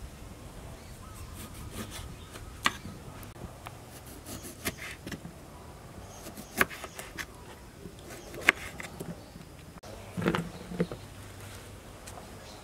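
Kitchen knife cutting limes against a wooden cutting board: sharp single clicks and knocks every second or two, with a duller cluster of knocks about ten seconds in, over a steady low hum.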